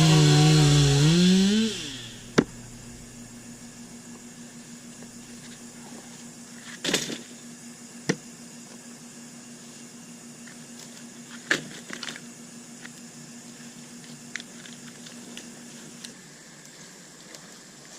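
Background music that stops about two seconds in, followed by a faint steady background broken by a few sharp knocks.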